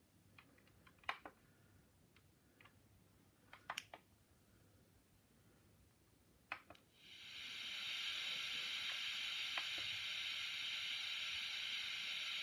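Sound decoder of a Minitrix N-scale class 01 steam locomotive model, which switches on about seven seconds in with a steady steam hiss from its small speaker. Before that there are a few faint clicks.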